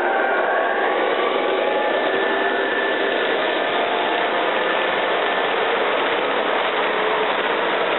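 Model freight train rolling past close by: a steady rush of metal wheels on the track, with a faint whine from the model diesel locomotives' motors.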